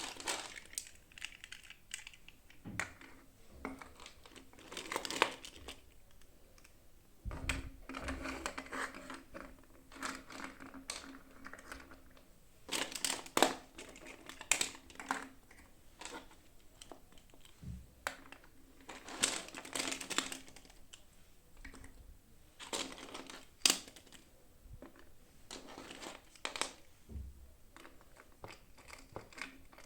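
Packaging of a toy being unwrapped by hand: plastic crinkling and rustling, with irregular small clicks and taps and occasional tearing.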